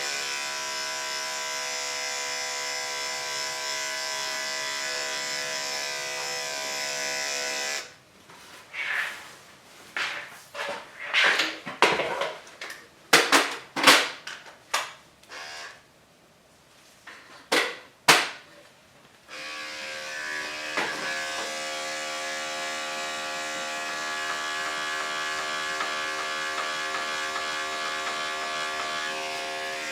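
Electric dog grooming clippers running with a steady hum. About eight seconds in they stop, and for roughly eleven seconds there are only irregular short knocks and rustles. Then the clippers start again and run steadily to the end.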